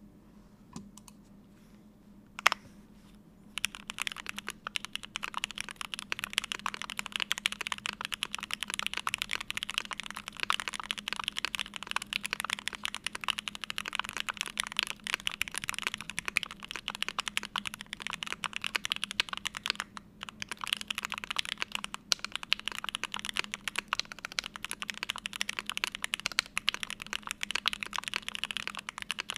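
Fast, continuous typing on a custom mechanical keyboard with stock Gateron Oil King linear switches, an aluminium plate, full foam and GMK keycaps. The typing starts about three and a half seconds in, after a single sharp click, and pauses briefly once past the middle.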